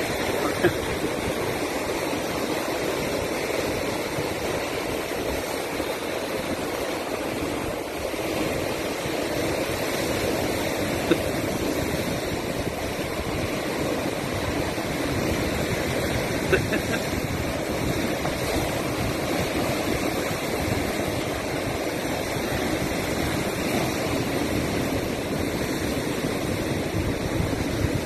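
Ocean surf breaking and washing over flat shoreline rocks, a steady rushing noise, with three brief sharp clicks.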